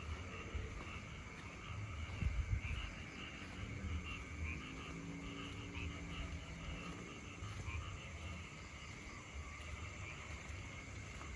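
A chorus of frogs calling continuously at night, a dense chatter of short repeated calls, over a steady low rumble.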